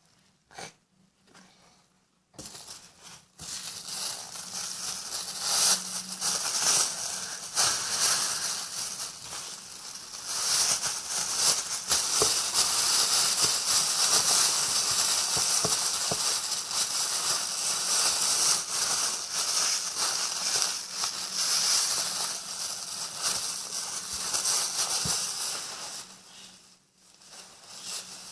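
A plastic refrigerator bag filled with sponge, liquid soap and water being squeezed and kneaded: a dense crackling hiss of soap foam and crinkling plastic. It starts about two seconds in and fades away near the end.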